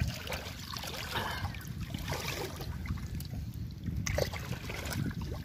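Shallow seawater splashing and sloshing as a large sailfish is hauled through the water onto a wooden board, over a steady low rumble.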